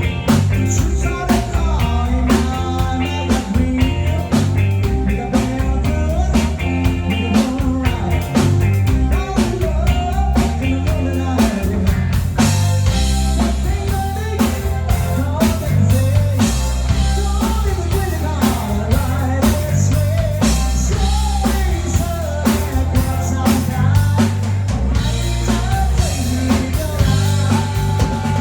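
Rock band playing a song in rehearsal: a drum kit keeps a steady beat under electric guitar and a singing voice.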